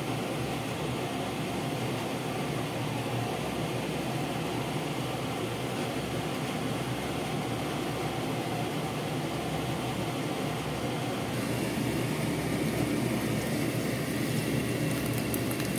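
A steady rushing noise from a pot of mung bean soup simmering on a gas stove. About two-thirds of the way through it gives way to the brighter sizzle of mackerel fillets frying in oil, with sharp spatter crackles near the end.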